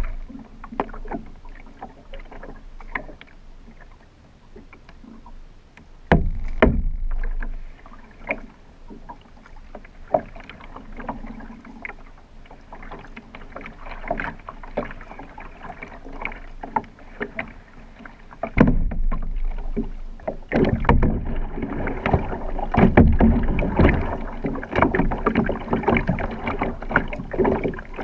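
Water lapping and slapping against a plastic kayak hull, with irregular knocks and splashes; from about two-thirds in the splashing grows much louder and fuller.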